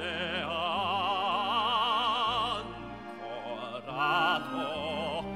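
Operatic singing with wide vibrato over orchestral accompaniment. One long held note lasts about two seconds, and a second, shorter sung phrase comes near the end.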